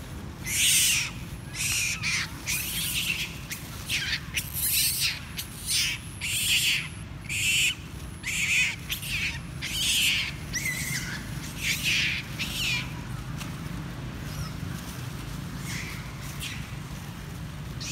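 Long-tailed macaque screaming: a dozen or so shrill cries, about one a second, that die away after about thirteen seconds.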